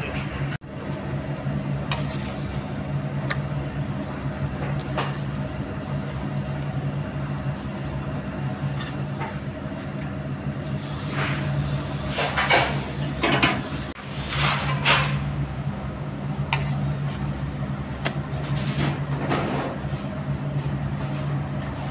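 A steady mechanical hum under the faint hiss of a paratha frying in butter in a non-stick pan. A metal spoon scrapes and clinks against the paratha and pan several times in the second half as it spreads the butter.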